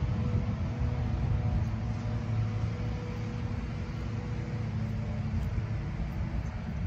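Steady low rumble of outdoor background noise, with a faint steady hum through the middle few seconds.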